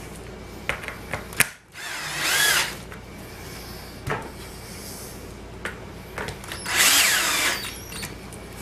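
Cordless drill driving screws in two short runs of about a second each, the motor speeding up and then slowing as each screw is run down until its washer sits flat. A few sharp clicks and knocks of handling come between the runs, the loudest just before the first.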